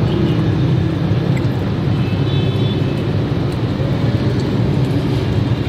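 A car engine idling, heard from inside the cabin as a steady low hum. A faint, short high tone sounds about two seconds in.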